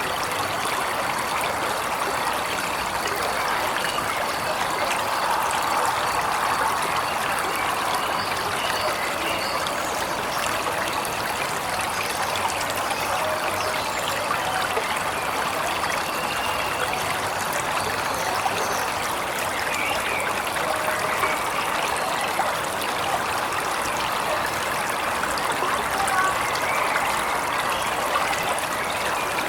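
Waterfall rushing and splashing steadily, with faint bird chirps now and then.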